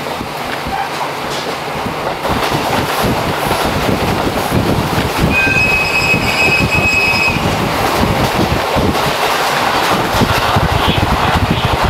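A diesel railcar train of KiHa 40 and KiHa 54 cars running on the rails, the rolling noise growing louder over the first few seconds. About five seconds in, a high steel wheel squeal sounds for about two seconds.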